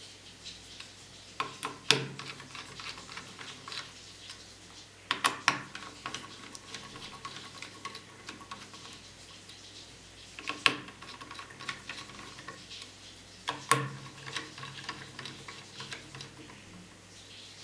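Small metal clicks and clinks in a few short clusters several seconds apart, some leaving a brief ringing: a screwdriver and screws against a laptop's metal heatsink as it is fitted back onto the motherboard.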